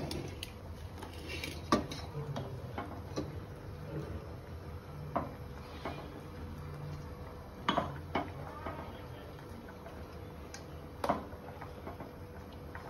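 Steel kitchen utensils clinking and knocking as boiled basmati rice drains in a perforated steel strainer over a steel pot. The clinks are scattered every second or two, the sharpest about two, eight and eleven seconds in.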